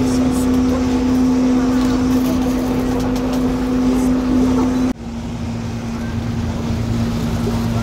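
Vaporetto water bus's engine running with a steady drone over a low rumble. About five seconds in it breaks off abruptly and resumes a little quieter and slightly lower in pitch.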